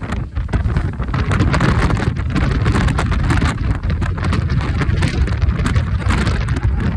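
Strong wind buffeting the microphone: a loud, ragged rushing rumble that rises and falls with the gusts.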